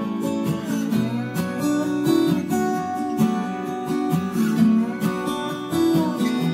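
Background music: acoustic guitar strumming and picking a steady pattern.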